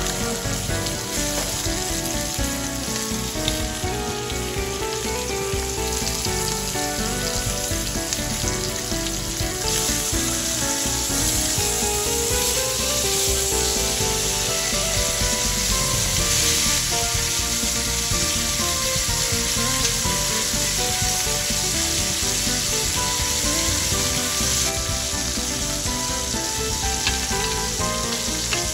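Ribeye steak sizzling in butter and oil in a hot ridged cast-iron grill pan, a steady frying hiss that is louder through the middle stretch.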